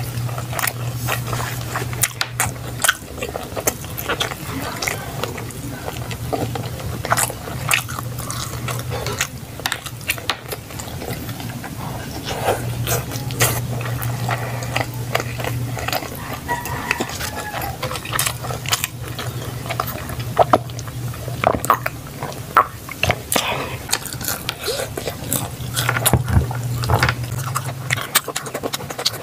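Close-up eating sounds: a person chewing and biting food, with frequent mouth clicks. A low hum comes and goes in the background.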